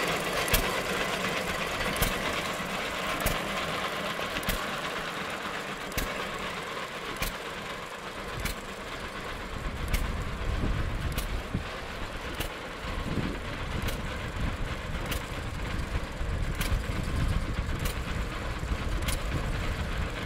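John Deere 3 HP hit-and-miss engine running and driving a chain-driven paddle elevator, with sharp, regular knocks about every 1.3 seconds over the clatter of the chain and paddles. A low rumble comes in about halfway through.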